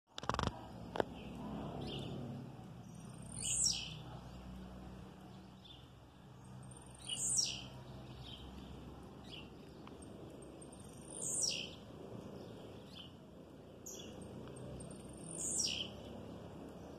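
Male blue-black grassquit (tiziu) singing its short song four times, about every four seconds. Each song is a brief, high note that slides quickly downward.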